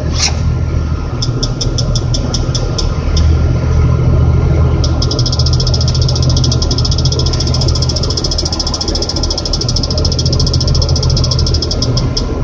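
Crane's engine running steadily under a cab warning beeper: a short run of separate, dashed beeps (the load moment indicator warning of approaching overload capacity), then from about five seconds in a rapid, almost unbroken beeping, the solid beeping that signals winds over 30 mph.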